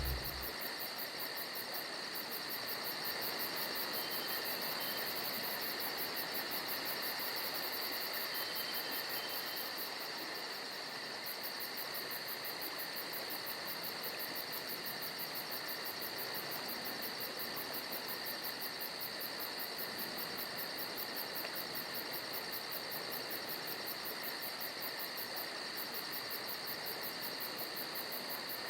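Crickets and other insects chirping steadily in a fast, even pulse, with a continuous high insect drone underneath.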